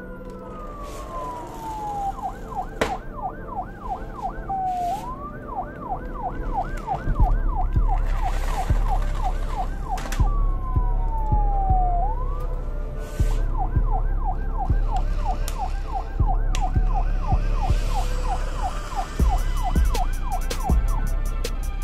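Electronic emergency-vehicle siren alternating between a slow falling wail and a fast yelp of about four rises a second. From about seven seconds in, a low rumble with scattered clicks joins it as pull-back toy vans roll across a wooden floor.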